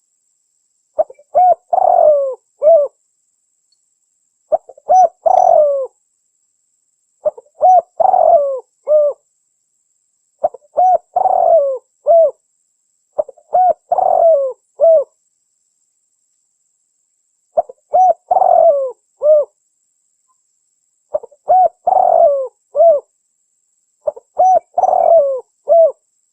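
Spotted dove (tekukur) cooing, a female's call used as a lure to call in males. Eight phrases of three or four notes each: a short coo, a longer rising-and-falling coo, then a short closing note, with pauses of about one to two seconds between phrases, slightly longer twice in the middle.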